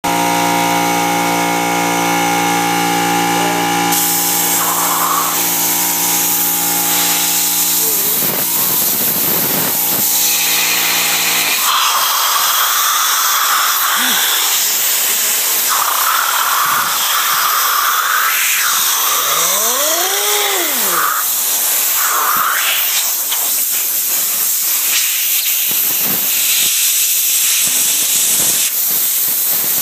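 Compressed air from an air blow gun blasting at close range, a loud steady rushing hiss. A low droning tone runs under it for about the first third, and a brief rising-then-falling tone sounds about two-thirds of the way through.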